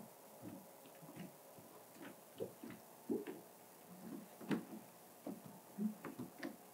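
Hands rubbing and massaging wet paint protection film on a car hood, with faint, short, irregular squeaks and rubs as slip fluid is worked under the film to break a hard tack line.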